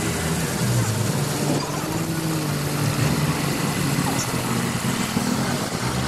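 Water tanker truck's engine running steadily at low revs, over a steady hiss of noise.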